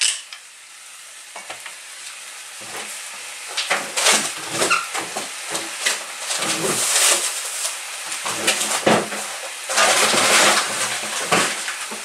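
Chicken pieces and onion sizzling as they fry in a frying pan, the sizzle swelling in irregular louder bursts after a quieter first couple of seconds.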